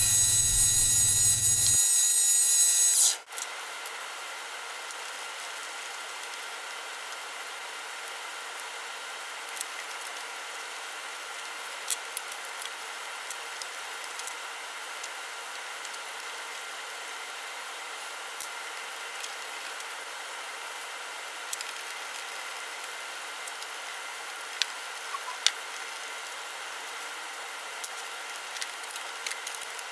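Mini lathe running as a boring bar chamfers the bore of an aluminium part: a loud machining whine with several steady high tones, which stops abruptly about three seconds in. After that, a faint steady hum with scattered light clicks and knocks of hands working the tool post and the handwheels.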